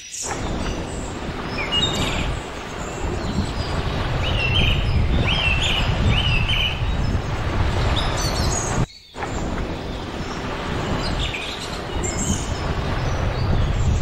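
Small birds chirping in short, repeated phrases over a steady rushing background of wind and surf with a heavy low rumble. The whole sound cuts out briefly about nine seconds in.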